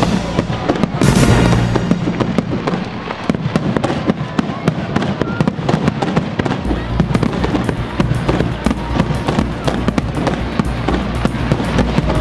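Fireworks display: aerial shells bursting, with a dense run of sharp crackling pops and bangs throughout and a low rumble.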